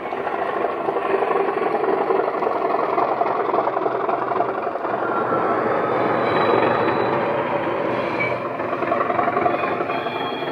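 DCC sound decoder in a model BR Class 37 diesel locomotive, playing the Class 37's English Electric engine sound through an EM2 bass speaker as the loco runs past hauling wagons. The engine sound is steady, with faint whistling tones coming in about the middle.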